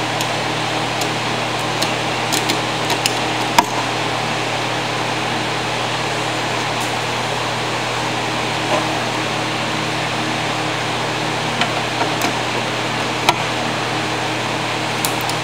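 A machine runs steadily with a constant hum and whir. A few light clicks and taps are scattered through it.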